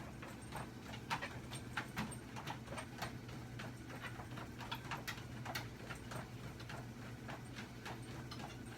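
A dog's paws clicking on a running treadmill belt in a quick, uneven stepping rhythm, over the steady low hum of the treadmill motor.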